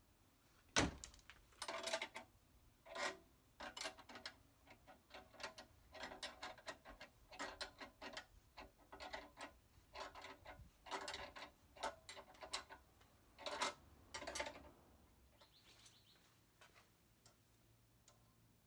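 Jeep Wrangler spare tire set onto its tailgate carrier with one sharp knock about a second in, then the lug nuts are run on and tightened by hand wrench: many short runs of metal clicking and scraping that stop a few seconds before the end.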